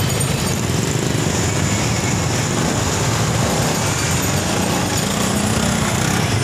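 Street traffic noise: small motorcycle and tricycle engines running in a steady, loud din.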